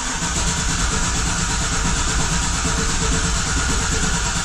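Starter cranking a GM 6.0-litre V8 in clear-flood mode, so the engine turns over steadily without firing, to build oil pressure through a newly fitted oil pump.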